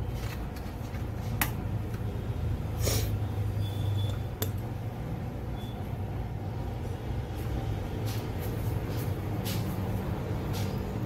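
Small sharp clicks and taps, about five of them at irregular gaps, as the internal connectors and parts of an opened iPad mini are handled, over a steady low hum.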